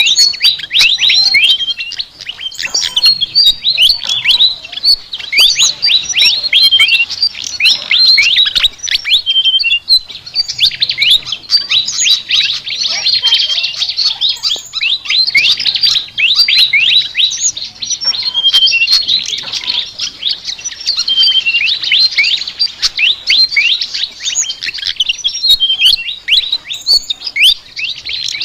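A sikatan (Asian flycatcher) singing a fast, continuous chattering song: a rapid string of high, quick downward-sweeping chirps and twitters, with brief lulls about ten and eighteen seconds in.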